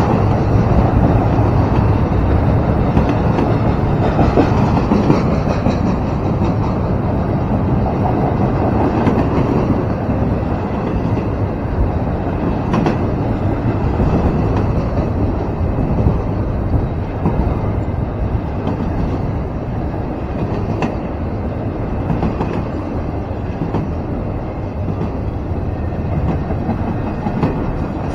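Double-stack intermodal freight cars rolling past: a steady rumble of steel wheels on rail with clickety-clack over the joints, and a couple of sharp clicks partway through.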